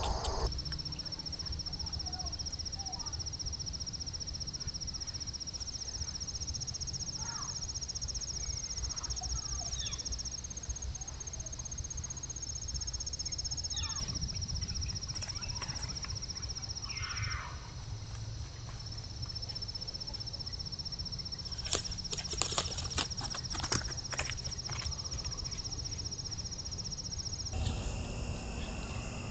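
Crickets or other insects trilling steadily and high-pitched over a low outdoor rumble, with a few faint chirps. A brief cluster of sharp clicks comes about three-quarters of the way through.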